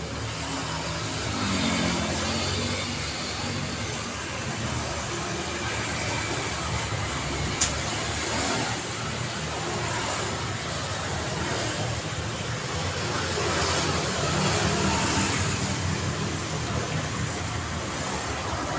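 City street traffic: cars passing steadily with engine hum and tyre noise, swelling as vehicles go by about two seconds in and again around fourteen seconds. A single sharp click about seven and a half seconds in.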